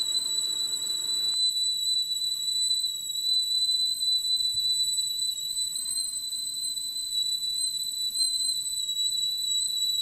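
Sotya stovetop kettle whistling at the boil: one steady, high, shrill tone that doesn't waver, loud enough to be heard from several rooms away.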